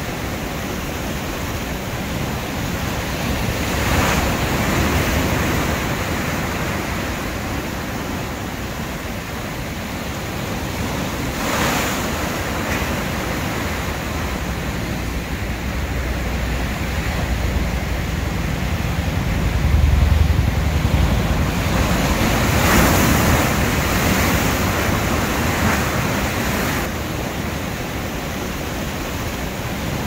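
Rough sea surf breaking continuously on the shore: a steady rush of crashing waves that swells louder now and then, with its deepest rumble about two-thirds of the way through.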